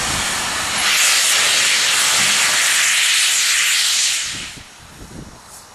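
Steam locomotive venting steam at ground level around its front end: a loud, steady hiss that swells about a second in and cuts off sharply about four and a half seconds in.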